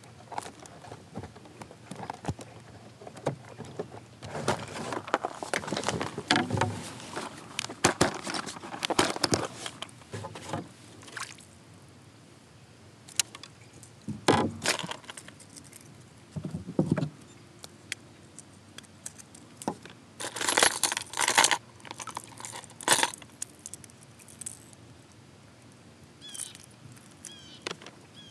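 Fishing gear handled in a plastic kayak: a clear plastic tackle box rummaged through and metal lure hooks jingling, as irregular bunches of clicks and rattles, the busiest run a little over two-thirds of the way in.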